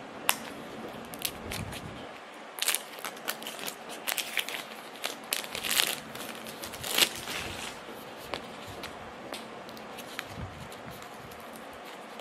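Small cardboard Sonny Angel blind box being picked and torn open by hand: scattered rips, crinkles and clicks of the packaging in uneven clusters, thinning out after about eight seconds.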